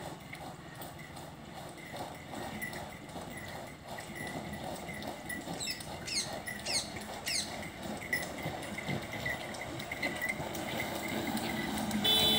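Hooves of a yoked pair of Ongole bulls clopping on a tarmac road at a walk as they drag a tyre behind them, in an even run of steps.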